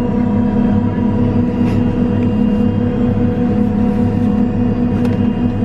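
Steady cabin drone inside a private jet: a loud, even low hum with a few fixed tones above it.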